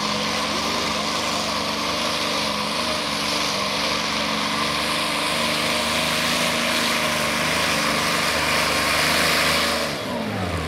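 Modified pulling tractor's engine running hard at full throttle under the load of the pulling sled, with a dense, steady roar and hiss. About ten seconds in the throttle comes off and the engine's pitch falls.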